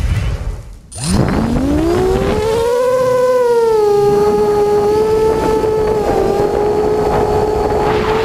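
FPV quadcopter's electric motors and propellers spinning up with a rising whine about a second in, then holding a steady high-pitched whine with small wobbles in pitch as it flies low.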